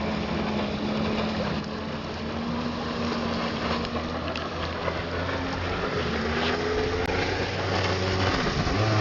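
1996 Kawasaki ZXi 1100 jet ski's three-cylinder two-stroke engine running at speed and growing louder as it approaches. Near the end the pitch swings up and down as the ski turns close by.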